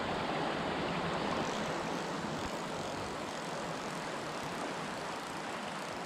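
Small freestone mountain stream running over a rocky riffle: a steady, even rush of water.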